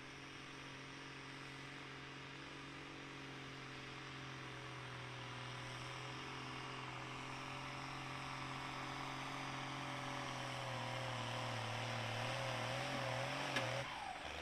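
Tractor engine running hard under load on a pull, getting gradually louder, its pitch wavering over the last few seconds, with a sharp click near the end.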